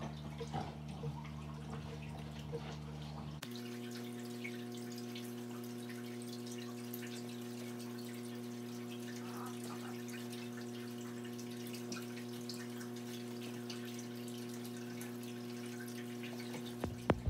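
A steady low hum of several held tones, with faint scattered ticks; the hum shifts to a slightly different set of tones about three and a half seconds in. A few knocks come right at the end.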